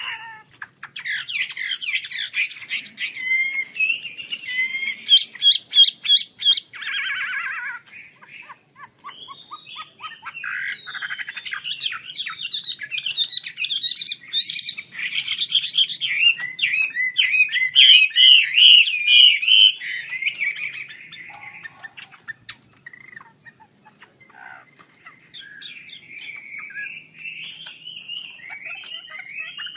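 Chinese hwamei singing a long, varied song of rapid whistled and trilled phrases, loud in two stretches and softer in the last third.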